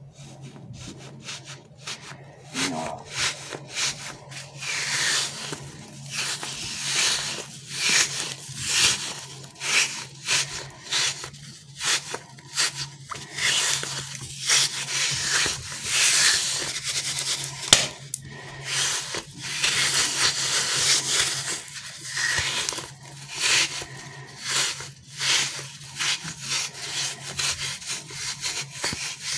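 A soft, stretchy squishy toy being squeezed and kneaded in the hands, its surface rubbing and squishing against skin in irregular strokes, roughly one a second.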